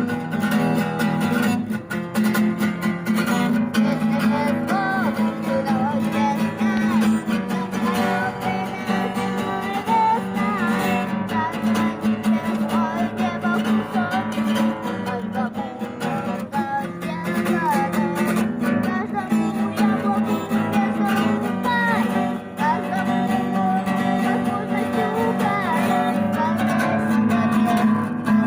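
Acoustic guitar strummed steadily, with a wavering melody line above it.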